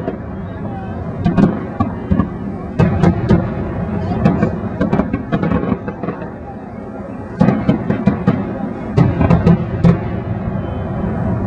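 Aerial fireworks bursting: clusters of sharp bangs and crackles about a second in, around three seconds, near five seconds, and again from about seven and a half to ten seconds, over a continuous low rumble.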